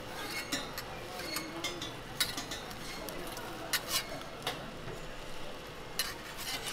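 Metal spatula clinking and scraping on a steel flat-top griddle, with about seven sharp taps scattered through, over a steady low hiss.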